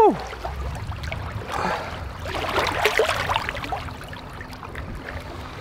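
Shallow lake water splashing and swirling as a released steelhead kicks away from the shore. The splashing is busiest between about one and a half and three and a half seconds in, then eases off.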